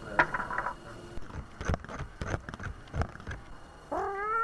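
A domestic cat meows once near the end, a single drawn-out call, after a string of light knocks and taps.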